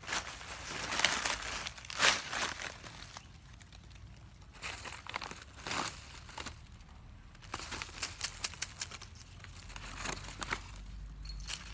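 Dry fallen leaves crunching and crackling underfoot in irregular bursts, with the loudest crunches about one and two seconds in and another cluster near the end.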